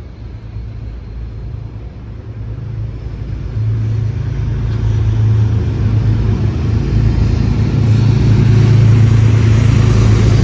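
Metro-North P32AC-DM diesel locomotive approaching, its engine a steady low hum with rumble. It jumps louder about three and a half seconds in and keeps building as the train draws near, with more rumble near the end.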